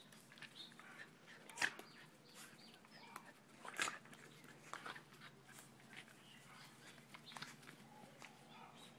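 Two small dogs play-wrestling, with faint scuffling and short sharp sounds from the tussle; the two loudest come about a second and a half in and just before four seconds in.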